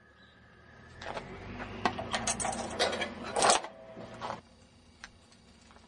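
Sheet metal scrap clattering and rattling as it is handled, a quick run of clanks and rattles for about three seconds, loudest just before it stops.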